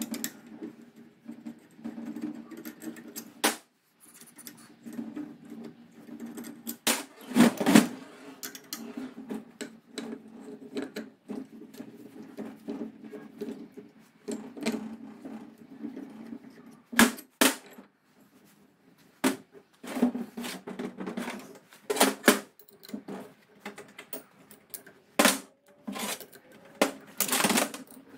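Metallic clicks, clinks and knocks of a hex key working the bolts of a chain-drive spool hub and of its steel parts (brake disc, sprocket, carrier plates) being handled and set down on a metal workbench. A steady low hum runs underneath, dropping out briefly about four seconds in and again around eighteen seconds.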